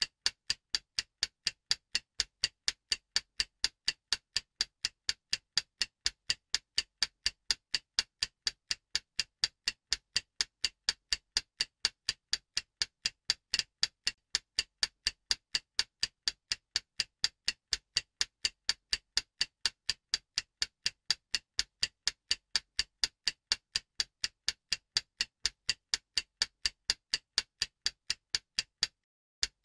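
Stopwatch ticking sound effect, even ticks about two a second, timing the viewer's attempt at the problem. A brief break near the end.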